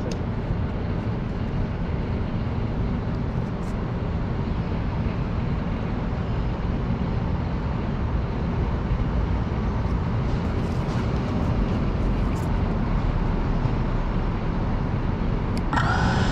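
Steady low rumble of city traffic. Near the end the FPV drone's motors start up with a steady whine.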